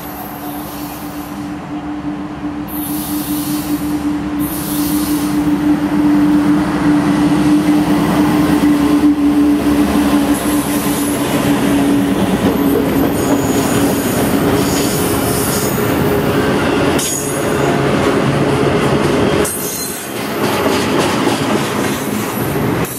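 Train passing on the rails. A steady low drone from the diesel locomotive builds as it approaches. The rolling cars follow, with rumbling wheels and intermittent high-pitched wheel squeal.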